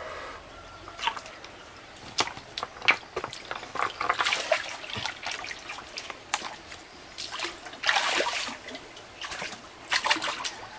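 Shallow water splashing and trickling in irregular bursts, with a few sharper splashes about two, four, eight and ten seconds in.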